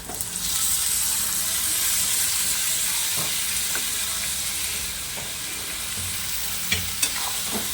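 Raw chicken pieces sizzling in hot oil with fried onions, the sizzle starting suddenly as they go into the pan and then holding steady. A few sharp clicks of a spoon stirring come near the end.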